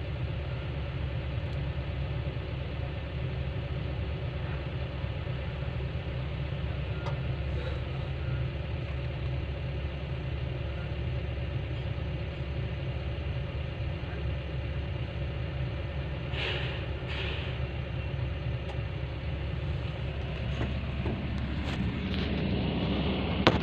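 Komatsu PC160LC-8 hydraulic excavator's diesel engine idling steadily, heard from inside the operator's cab.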